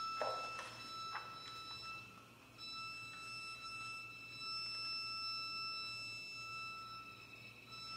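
Quiet contemporary chamber music for string quartet and piano. A single high note is held steadily with its overtones, breaks off briefly about two seconds in and then resumes. A few short, soft notes sound over it in the first two seconds.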